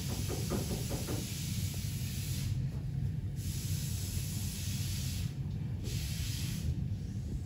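Steady low background rumble with a high hiss over it. The hiss drops out briefly three times.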